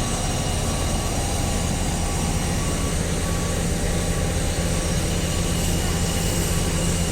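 Heavy road-works machinery running steadily: a constant engine drone with a noisy wash over it.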